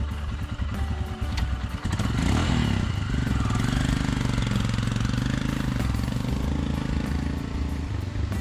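Royal Enfield Himalayan's single-cylinder engine running under way. About two seconds in its note sweeps in pitch, then it settles into a steady run.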